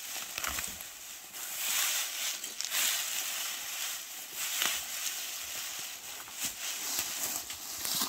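Rustling and crackling of weeds and leafy plants being pulled up and handled by hand, rising and falling in uneven swells with a few sharp crackles.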